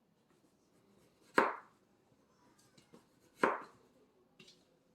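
Two knife strokes through canary melon rind, each a sharp chop onto a cutting board, about two seconds apart.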